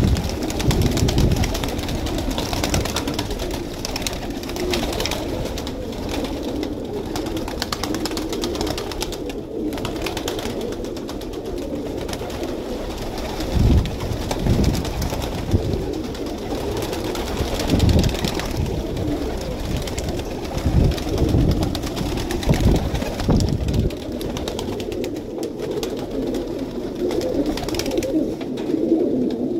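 A large flock of domestic pigeons cooing together in a dense, continuous chorus. A few low thumps come in around the middle.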